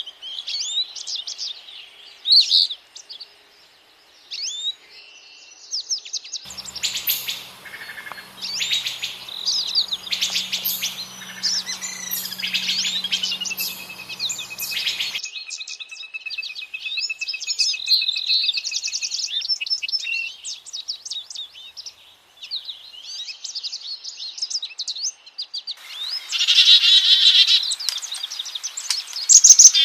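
A chorus of songbirds singing and calling, with many short, high chirps and whistles overlapping. Partway through, one bird holds a long, even trill for several seconds. The background hiss switches on and off abruptly a few times.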